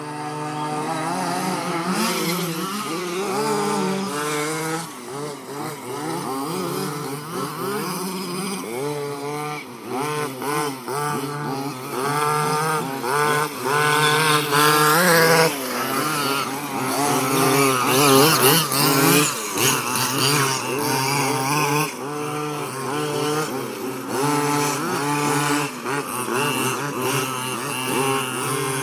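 Small two-stroke engines of several 1/5-scale gas-powered RC trucks (HPI Baja 5SC, MCD) revving up and down as they race and jump, with a steadier lower engine drone underneath.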